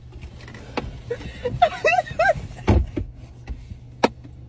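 Short bursts of a woman's giggling and several sharp knocks and thumps as people shift about inside a car, over a steady low hum.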